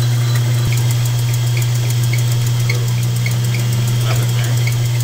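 Logan 922 metal lathe running as it turns a brass cap on a bolt end. Its motor and drive give a steady hum with a light, regular ticking about three times a second.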